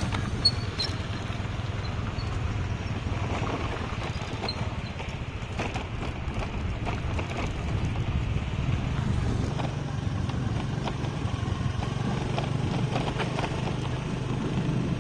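Scooter engine running steadily at low riding speed on a rough dirt track, with tyre and wind noise and occasional knocks and rattles over the bumps.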